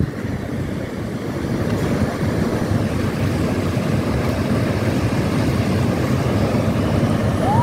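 Wind buffeting the microphone over the steady rush of ocean surf breaking below a pier. A brief high whistle-like tone starts right at the end.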